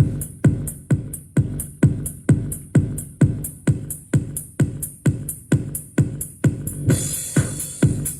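Electronic dance music with a steady kick-drum beat, about two beats a second, and hi-hat ticks between the kicks. A hissing cymbal-like swell comes in near the end.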